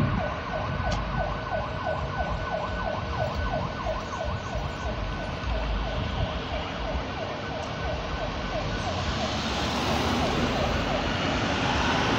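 Electronic siren in a fast yelp, about three to four rising sweeps a second, fading away near the end, over street traffic.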